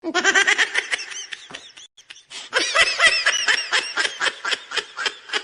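High-pitched giggling laugh used as a meme sound effect: a quick run of short, squeaky laughing notes that starts abruptly, falters briefly about two seconds in, then carries on.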